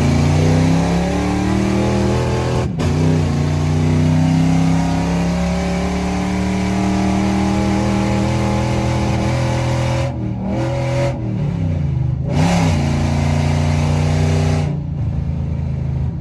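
Loud truck engine and exhaust accelerating hard, its pitch climbing over the first several seconds. The pitch dips and climbs again a couple of times past the middle, then settles into a steadier, duller drone near the end as the throttle eases.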